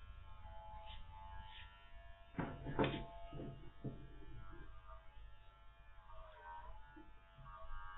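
Electric dog clippers running with a steady hum as they shave a Spanish water dog's curly coat. A short burst of clattering knocks comes about two and a half seconds in.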